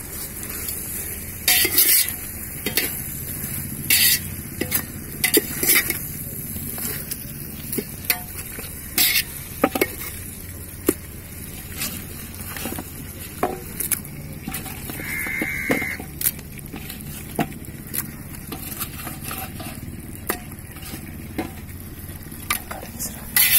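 Beef pieces sizzling in a hot metal pot while a perforated steel skimmer ladle stirs them, scraping and knocking against the pot in irregular sharp clacks.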